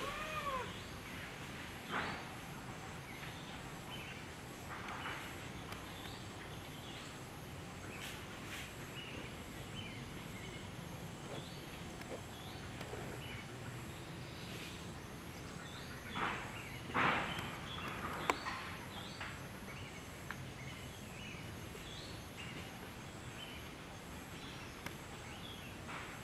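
Infant long-tailed macaque giving short, high squealing cries, a few separate calls with the loudest pair about two-thirds of the way through, over faint high chirps.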